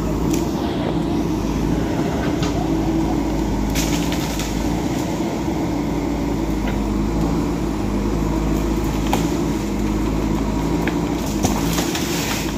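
A motor vehicle's engine running steadily, with a few light knocks or rattles along the way.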